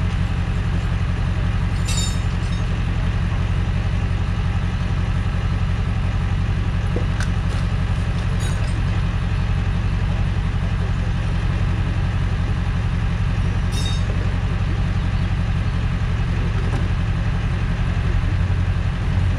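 Tow truck engine idling steadily, with a few light clicks and rattles over it.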